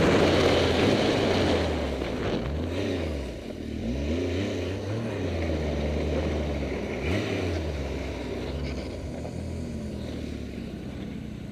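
Ski-Doo snowmobile engine heard from the rider's seat, running hard at first, then easing off with several quick revs up and down as the sled slows.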